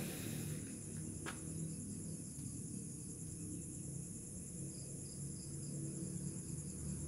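Steady high-pitched chorus of insects, with a low rumble underneath and one sharp click about a second in.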